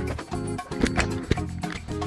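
Background music with a steady rhythm.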